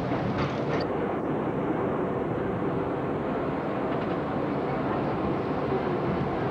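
R32 subway train running at speed through a tunnel, a steady rumble of wheels on rail heard from inside the lead car, with a few sharp clicks in the first second.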